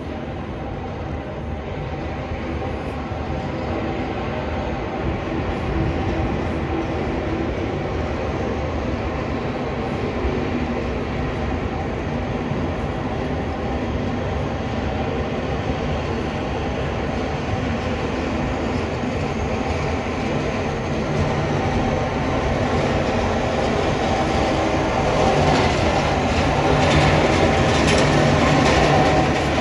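Sanitation trucks fitted with front snow plows approaching down the street: diesel engines running and plow blades scraping along the snowy pavement, a steady rumble that grows louder toward the end.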